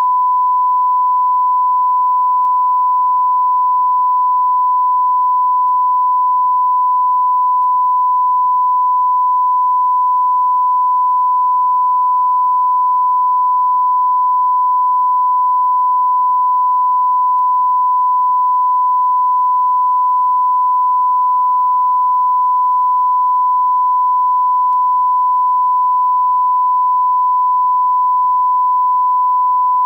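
Steady 1 kHz reference test tone sent with SMPTE colour bars: the line-up signal a TV station transmits after signing off.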